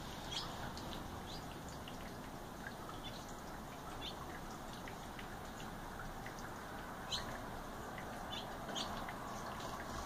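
Small songbirds chirping: short, high, scattered chirps, a few louder ones about seven and nine seconds in, over a steady wet-sounding hiss.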